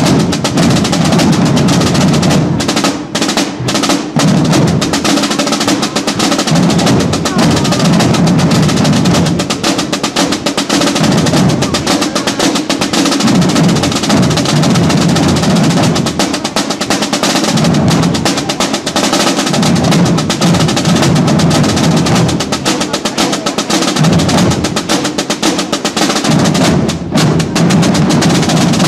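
Procession drum corps, snare drums playing a continuous marching rhythm with rolls and no break.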